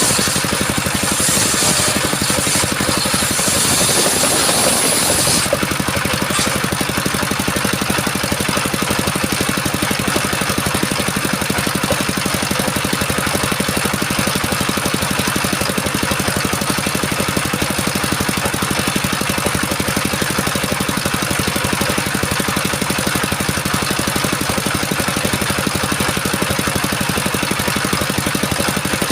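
Stationary diesel engine running steadily, driving a homemade circular sawmill. For the first five seconds or so a loud high hiss of the saw blade cutting coconut wood lies over it, then the engine runs on alone.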